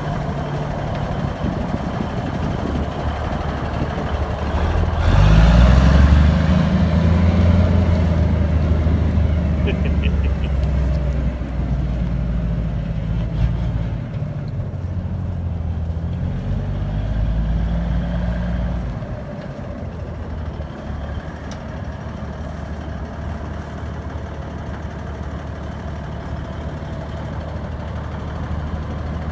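Cummins diesel of a 1979 Kenworth W900A semi tractor running as the truck is driven. It revs up about five seconds in and settles back to a lower, steadier run around nineteen seconds.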